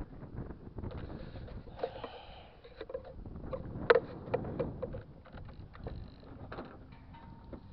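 Camera handling noise: a low rumble with scattered rubbing and knocks as the camera is moved around, and one sharp click about four seconds in.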